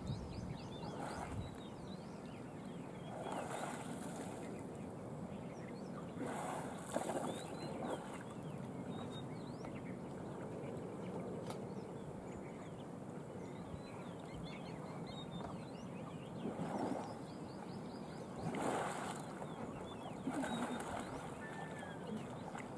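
Water splashing in short bursts every few seconds as Sri Lankan elephants wallow and shove one another in a lake, over a steady background of many faint bird chirps.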